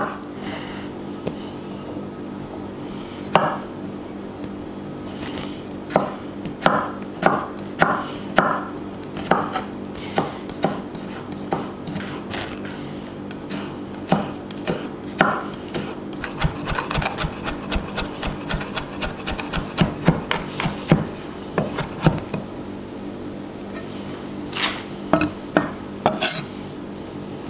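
Chef's knife chopping garlic on a wooden cutting board. Scattered cuts at first, then a fast run of rapid chopping in the middle as the garlic is minced fine, and a few last cuts near the end.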